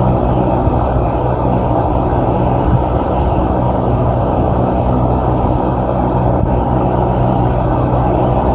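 Steady, loud low drone with a constant hum underneath.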